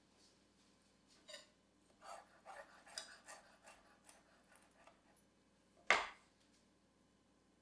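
Chef's knife chopping fresh herbs on a wooden cutting board: a quick run of short knife taps for a few seconds, followed by a single louder knock on the board about six seconds in.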